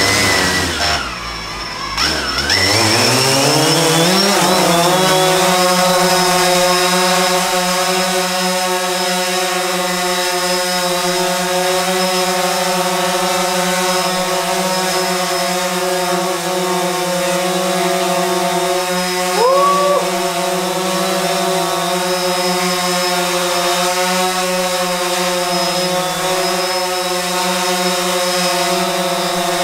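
DJI Phantom 4 Pro quadcopter's propellers whining. The pitch dips and climbs over the first few seconds, then holds steady, with a brief rising chirp about twenty seconds in.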